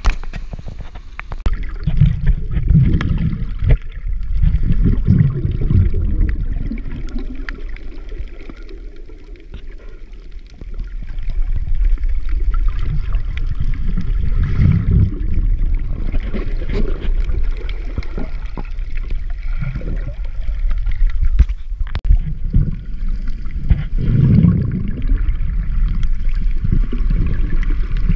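Muffled underwater rumble and sloshing of sea water surging over a rocky reef, picked up by a camera held underwater. It swells and ebbs every few seconds with the waves.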